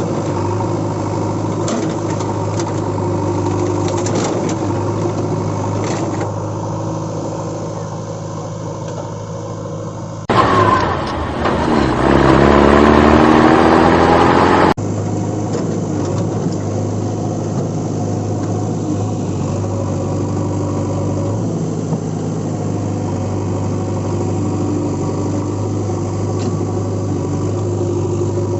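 Steady engine idling hum. About ten seconds in, a much louder engine sound breaks in with its pitch rising like a rev, then cuts off suddenly some four seconds later.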